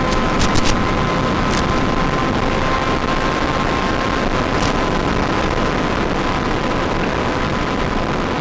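Steady, loud hiss-like noise with a faint steady high tone, and a few short clicks in the first two seconds.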